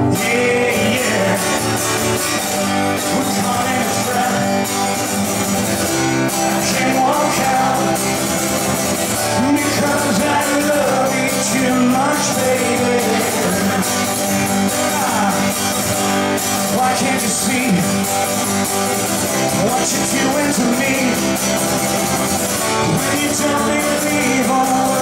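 A man singing a rock-and-roll song live, accompanying himself by strumming an acoustic guitar.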